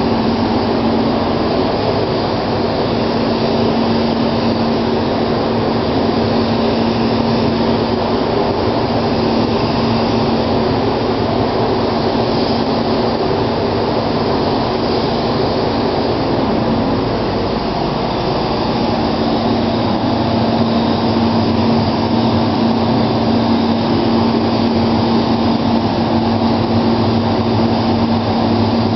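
Steady hissing rush of a gravity-feed spray gun's compressed air laying down clear coat, over the constant hum of the paint booth's ventilation.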